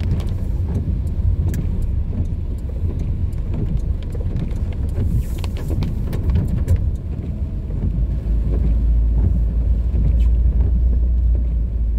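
Car driving slowly on a rain-wet street, heard from inside the cabin: a steady low rumble of engine and road noise, with scattered faint ticks.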